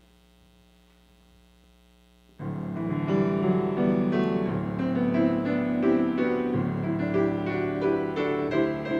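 A faint steady hum for the first two seconds or so, then a solo piano starts playing suddenly and plays on, a flowing line of notes over held bass notes.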